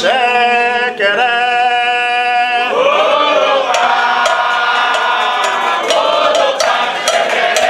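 Candomblé chant for Xangô, sung by voices in long held notes that thicken into a full chorus about three seconds in. Sharp percussion strikes come in over the singing in the second half.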